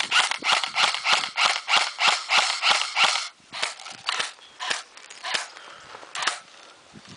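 Quick footsteps crunching through dry brush and leaves, about three a second, slowing after about three seconds to a few scattered steps.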